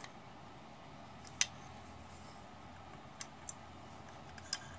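Light metal clicks from GM 10MT starter parts being handled as the armature is seated in the drive-end housing: one sharp click about a second and a half in, a few fainter ones later, over a low steady hum.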